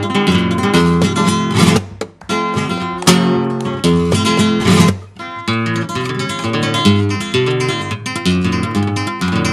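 Solo Spanish guitar playing an instrumental introduction: picked melody notes and chords, with three hard strummed chords about one and a half, three and four and a half seconds in.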